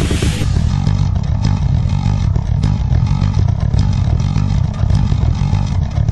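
Metal band playing live, loud and muddy: a bass-heavy wall of distorted guitar with fast, dense drumming. The treble drops away about half a second in, leaving a dull rumble.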